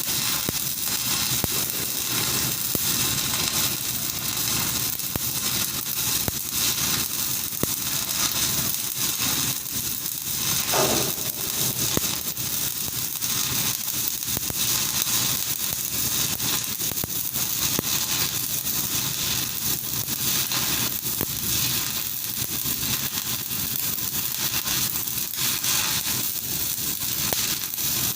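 Electric arc welding: a continuous sizzling crackle from the arc.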